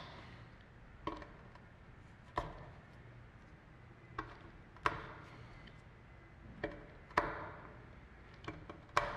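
Knife cutting notches into a strip of heel leather (a split lift), a short sharp click with each cut, about eight cuts at uneven intervals.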